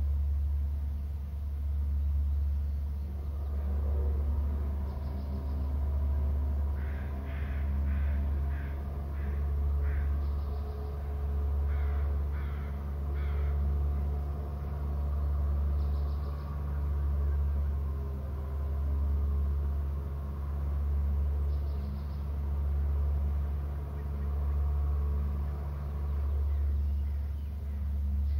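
A steady low hum that swells and fades about every two seconds, with a bird calling twice in runs of short, evenly repeated notes, six in the first run and four in the second.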